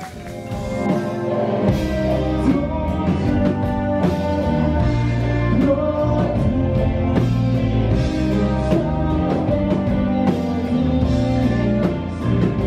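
A rock band playing live, with drum kit, guitar and a singer.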